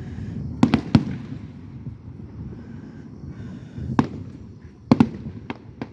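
Aerial fireworks exploding: about six sharp bangs at uneven intervals, two close together early and the rest in the second half, over a steady low rumble.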